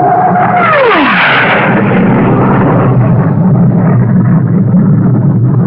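Jet aircraft passing low overhead: its engine whine drops steeply in pitch about half a second in, then gives way to a loud, steady jet roar.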